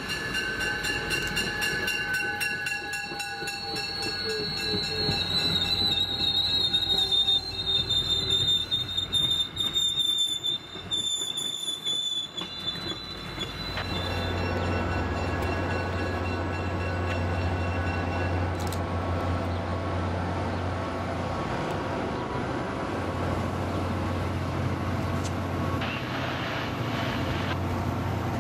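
MBTA commuter train coaches rolling past, their wheels squealing with several high, slowly shifting tones for the first dozen seconds. After a cut, a second commuter train's coaches pass with a steady rumble and a low hum underneath.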